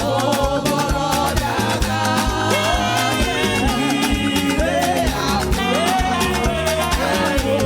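Live gospel praise-and-worship music: a band playing an upbeat dance rhythm with a steady beat, with voices singing over it.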